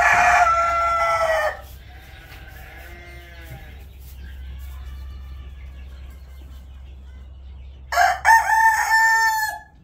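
Rooster crowing: one loud crow ending about a second and a half in, quieter crowing after it, and another loud crow near the end.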